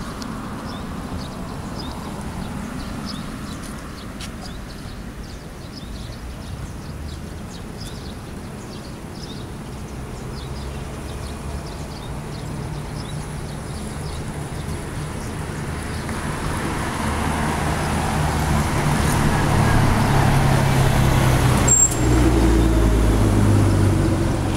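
Street traffic, with a bus engine growing louder through the second half and running close by near the end, where there is also one sharp click.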